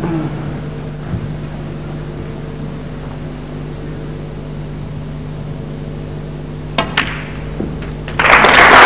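Snooker cue striking the cue ball with a sharp click about seven seconds in, a second click as it hits the black, and a soft knock as the black drops; the crowd breaks into loud applause near the end. A low steady hum lies under the quiet stretch before the shot.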